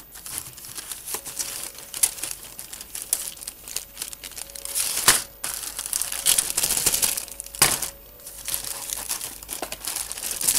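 Clear plastic bag holding grey plastic model-kit sprues crinkling and rustling as it is handled, in irregular crackles with a few sharper rustles.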